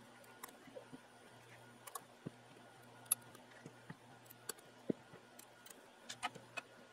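Faint, irregular sharp clicks of pliers gripping radial electrolytic capacitors and twisting them off a DVD recorder's circuit board, the twist-off method of removing old capacitors. There are about eight clicks, unevenly spaced.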